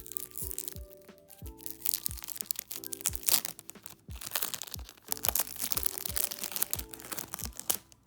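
Packaging crinkling and crackling as a photo card set is unwrapped, heaviest from about a second and a half in. Soft background music with a steady beat plays underneath.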